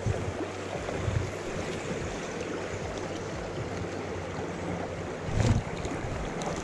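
Shallow river riffle running over rocks: a steady rush of water, with a brief low thump on the microphone about five seconds in.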